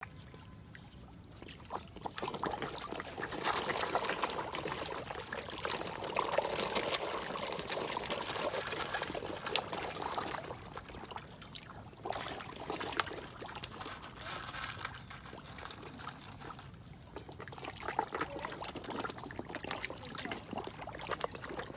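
A crowd of koi thrashing and gulping at the pond surface, a dense wet splashing and trickling. It starts up about two seconds in, is loudest in the first half, and eases off in waves after about ten seconds.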